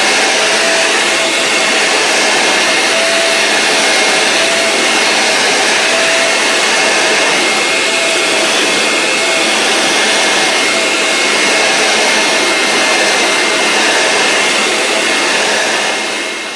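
A small motor running steadily with a loud rush of air and a faint high whine, like a vacuum cleaner; it cuts off suddenly at the end.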